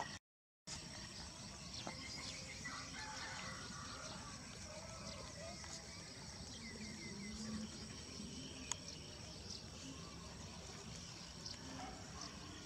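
Steady insect drone, a continuous high-pitched tone, over low rumbling background noise. The sound cuts out for about half a second just after the start, and there is one sharp click about nine seconds in.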